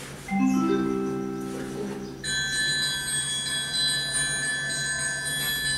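Recorded xylophone played through a laptop speaker: a quick rising run of notes, then from about two seconds in a high ringing chord that holds.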